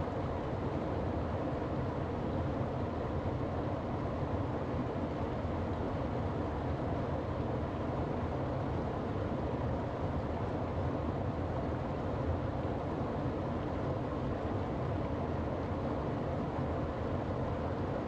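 A small mountain-stream waterfall pouring over rocks into a pool: a steady, even rushing of water, most of it low in pitch.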